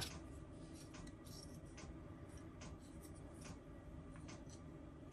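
Faint light clicks and rubbing of small plastic model-kit parts being handled and fitted together.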